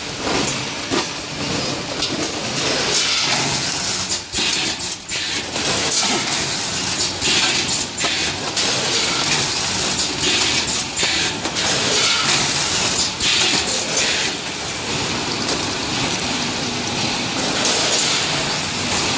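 Vertical form-fill-seal snack packing machine with a multi-head weigher running: a steady mechanical clatter and hiss, with many short clicks and louder rushes of hiss every few seconds.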